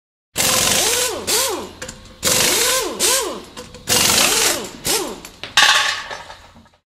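Whooshing sound effects with swept tones that rise and fall, coming in about four loud waves with smaller swishes between, for animated logo text flying into place. They stop shortly before the end.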